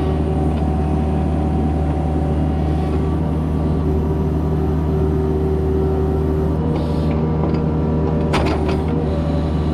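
Kubota excavator's diesel engine running steadily under work, with a sharp clank near the end.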